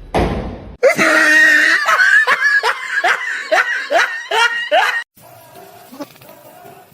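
A loud rushing burst, then a person laughing hard and high-pitched in a quick run of about nine shrieking bursts that cut off suddenly.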